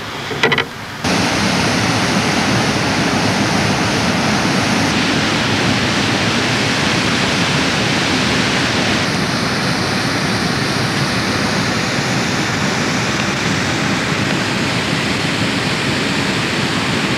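Steady rush of flowing river water through shallow rapids, cutting in abruptly about a second in and shifting slightly in tone twice.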